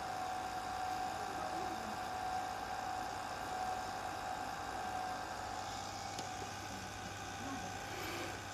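Steady hiss and hum from an old videotape playing back through a television's speaker, with a constant thin tone running under it.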